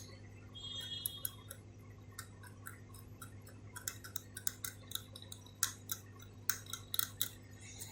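A small hand tool scraping and picking hot glue off a circuit board: irregular light clicks and ticks over a steady low hum.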